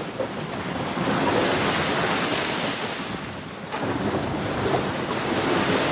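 Wind rushing over the microphone: a steady noise that swells and dips, with a sudden gust of low rumble a little past halfway.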